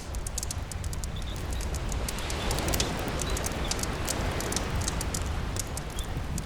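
Campfire crackling with sharp pops over steady rain and the low rumble of the sea; a wave washes in, swelling about two seconds in and easing off again.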